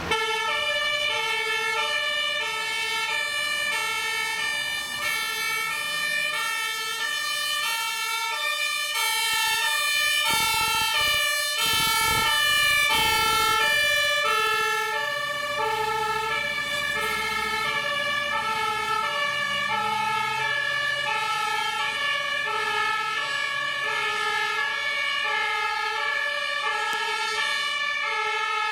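A fire engine's German two-tone siren (Martinhorn), stepping steadily back and forth between a low and a high tone about once a second. A Scania fire truck's engine rumbles under it and is loudest as the truck passes close, around the middle.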